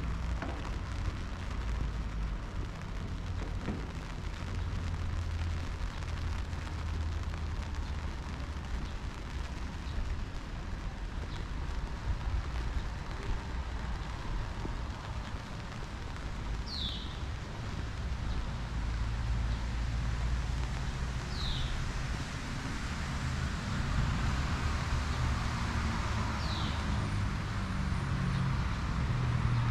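City street ambience: a steady hiss over a low traffic rumble, with a vehicle engine growing louder near the end. Three short falling high chirps sound about five seconds apart in the second half.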